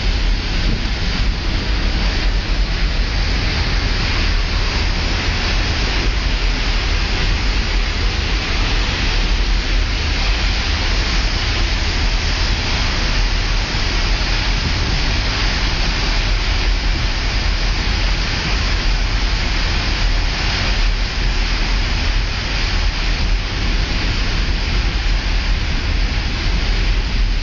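Steady rush of wind and water: wind buffeting the microphone over the hiss of spray and wash thrown up by a pilot boat running at speed alongside a ship's hull.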